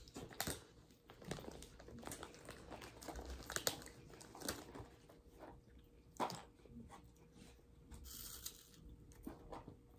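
Faint crunching of cheese curls being chewed, with the crinkle of a snack bag as a hand reaches in, coming as scattered short clicks and rustles.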